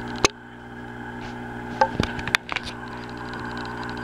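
Steady hum of running aquarium equipment, with a few sharp clicks and knocks: one about a quarter-second in and a quick cluster around the middle.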